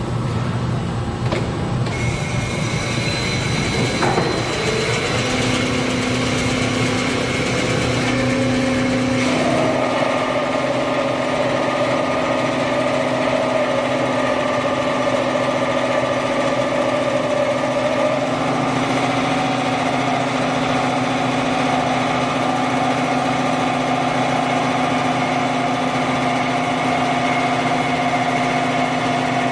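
Kotec Newrun 10DX H-beam drilling machine running: a steady machine hum with whining tones that step to new pitches about 2, 9 and 18 seconds in, and one falling whine about 4 seconds in.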